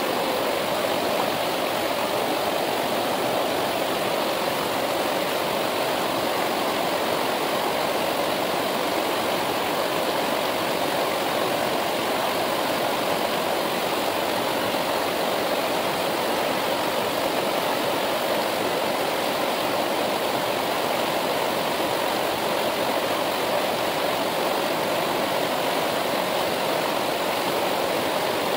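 Himalayan river water rushing steadily, an even, unchanging rush.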